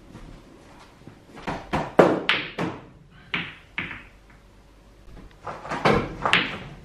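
Pool balls struck with a cue, knocking together and thudding against the table: a run of sharp clacks and thuds in two bunches, one about a second and a half in and another near the end.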